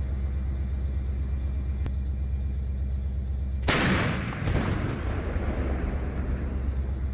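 An artillery gun fires once, a sudden blast a little past halfway through that dies away over about a second and a half. A steady low engine drone runs underneath.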